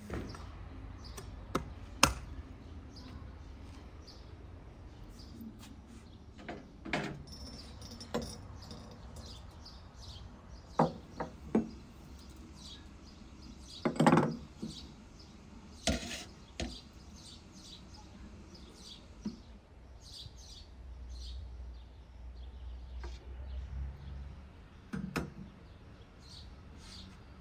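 Scattered knocks and clinks of a metal samovar and a porcelain teapot and its lid being handled. There is a sharp knock about two seconds in, a cluster of louder clinks around the middle, and one more near the end. Small birds chirp in the background.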